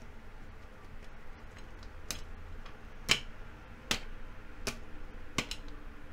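Five sharp clicks, less than a second apart, over a faint steady background hum; the third-from-last, about three seconds in, is the loudest.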